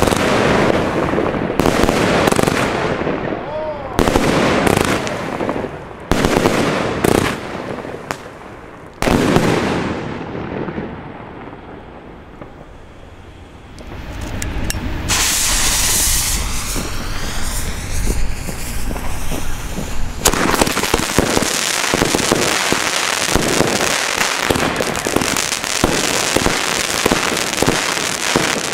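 Aerial firework shells bursting with a series of sharp bangs that ring out after each burst. After a short lull comes a loud hissing launch with falling whistling tones. From about two-thirds of the way through, a firework battery fires a dense stream of rapid crackling shots.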